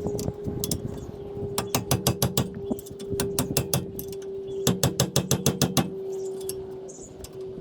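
Brake caliper mounting-bracket bolts being tightened with a wrench: several short runs of rapid metallic clicking, about seven or eight a second, over a steady hum.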